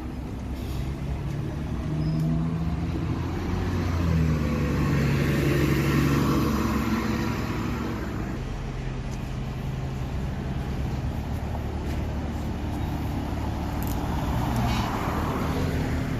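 Bus engine running, getting louder in the middle and then easing off to a steady level.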